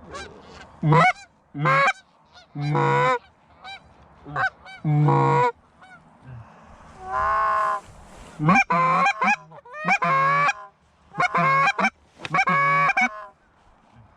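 Canada geese honking: about a dozen loud, harsh two-part honks in two bunches, with a short lull in the middle.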